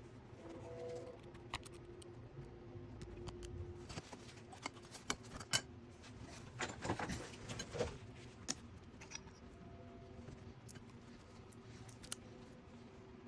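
Light metallic clicks, taps and clinks of power steering pump parts and hand tools being handled, busiest in the middle, over a faint steady hum.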